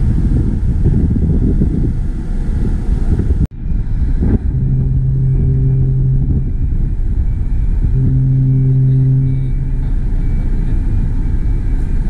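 Majestic Princess cruise ship's horn sounding two long, deep blasts of the same pitch, each about two seconds, a second and a half apart, over a steady low rumble.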